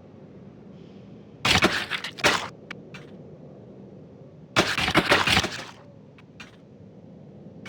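Two loud bursts of crunching, each about a second long and about three seconds apart, as crisp food is bitten and chewed close to the microphone, with a few sharp clicks after the first.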